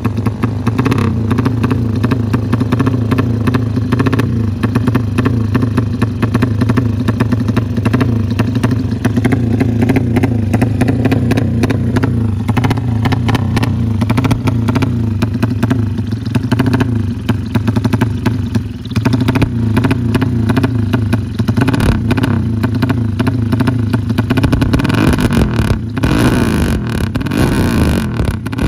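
Freshly built drag-race motorcycle engine running loud and steady, held at idle with small changes in pitch while it is being set up.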